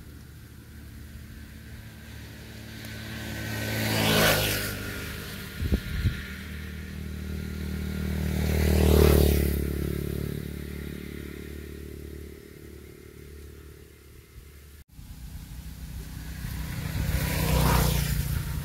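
Road vehicles passing by one after another, three times, each rising to a peak and fading away over a few seconds. Two short low thumps come in between, about six seconds in.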